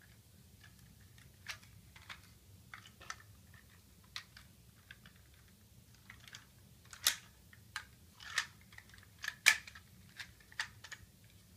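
Plastic parts of a Transformers toy clicking and snapping as it is handled and transformed by hand: irregular small clicks, with a few louder snaps in the second half.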